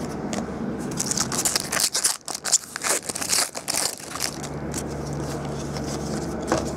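Foil trading-card pack wrapper crinkling and tearing as it is handled and ripped open, with quick crackles and rustles and cards flicked through by hand.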